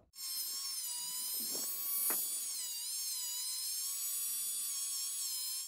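Dremel rotary tool with a cut-off wheel spinning at high speed, a steady high whine that dips slightly in pitch now and then as the wheel grinds a flat spot into a steel RC boat drive shaft.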